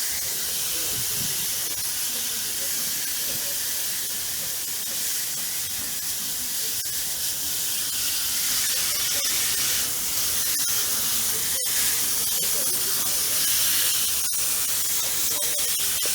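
Water spraying from a hose nozzle as the coil cleaner is rinsed off a vintage window air conditioner: a steady hiss of spray on the metal that cuts out for an instant twice in the second half.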